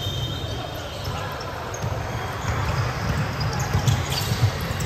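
Basketball game in play: a ball being dribbled and players' footsteps on the court give irregular thuds, the loudest about four seconds in, over background chatter from people in the hall.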